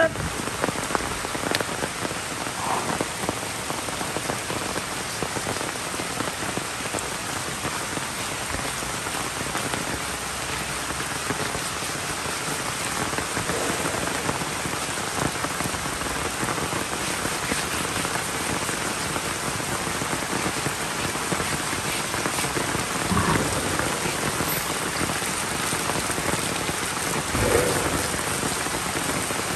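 Steady rain falling and pattering on the ground and surfaces.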